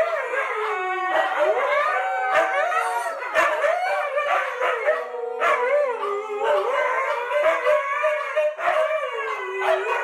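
A group of huskies howling together, several long wavering howls at different pitches overlapping, rising and falling throughout.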